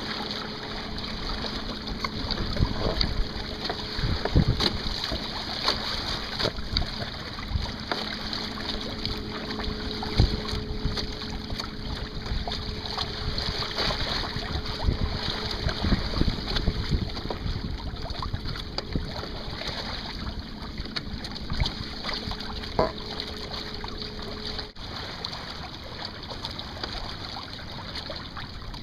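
Wind buffeting the microphone and water rushing and splashing along the hull of a Hobie Adventure Island sailing kayak under sail. A faint steady hum runs underneath and stops near the end.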